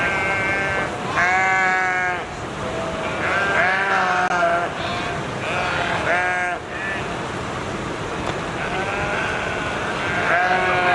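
Flock of sheep bleating: about half a dozen wavering calls of different pitches from several animals, some overlapping.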